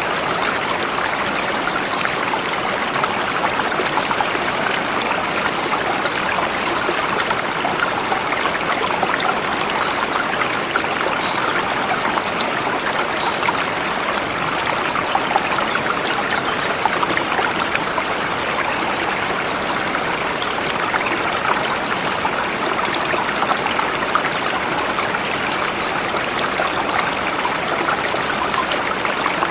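Forest river flowing steadily over rocks, a continuous rushing and babbling of water.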